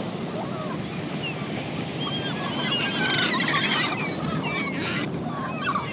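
A flock of seagulls calling, many short overlapping squawks, busiest around the middle, over a steady rush of background noise.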